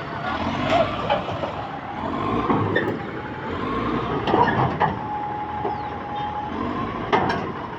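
Bulldozer's diesel engine running under load, with sharp metallic clanks and knocks as it is loaded onto a low-bed trailer. A steady high tone sounds for about a second and a half just past the middle.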